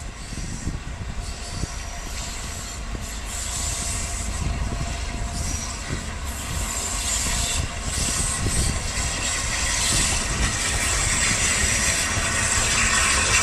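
LNER Peppercorn A1 Pacific steam locomotive No. 60163 'Tornado' and its coaches passing close by, growing steadily louder as they approach, with wheels clacking over the rails and a hiss of steam.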